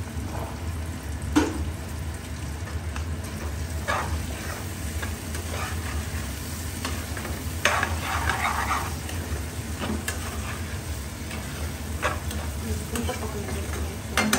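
Onions and green peas frying in desi ghee in a pan, stirred with a spoon that knocks against the pan every few seconds. A steady low hum runs underneath.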